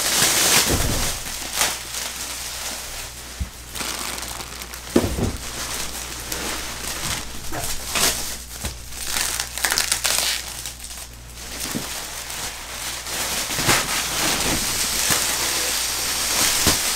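Thick plastic wrapping crinkling and crackling as it is pulled and bunched off a rolled, compressed mattress, with irregular louder crackles.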